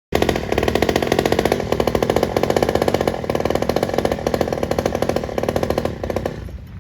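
Internal-combustion engine running close by with a fast, even firing beat. It stops abruptly a little after six seconds in.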